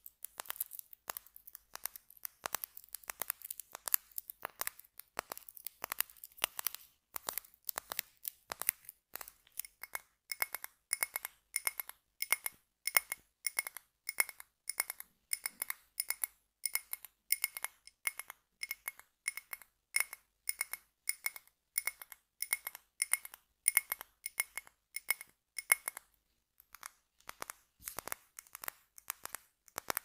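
Fingers tapping and crinkling rapidly on a gold-foil-wrapped chocolate coin, then tapping on the glass jar of a scented candle, each tap ringing with a high clink. The glass tapping starts about a third of the way in and thins out near the end.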